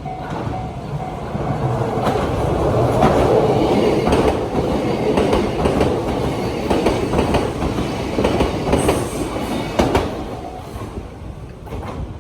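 Electric train passing a railway level crossing, its wheels clicking rapidly over the rail joints. It swells to its loudest about three seconds in and fades near the end. A level crossing bell rings in steady repeated dings at the start and again briefly near the end.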